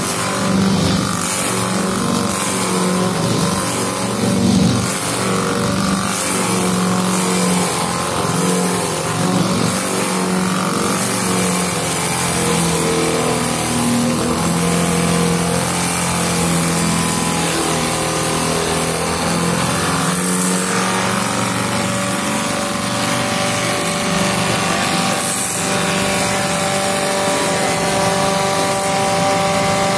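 Automatic copy wood lathe running, its cutter turning a square wooden blank into a shaped spindle: a steady motor hum under a continuous noise of cutting wood. A higher steady tone comes in about two-thirds of the way through.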